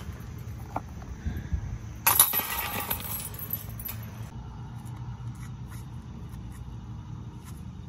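Metal chains of a disc golf basket jangling once, starting sharply about two seconds in and dying away over about two seconds.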